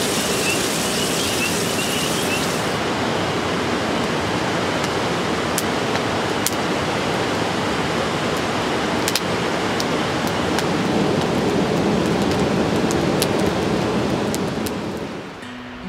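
Steady rush of nearby river rapids. A campfire crackles and pops over it from about five seconds in. For the first couple of seconds a high hiss of fish frying in a cast iron pan sits on top, and the whole sound fades near the end.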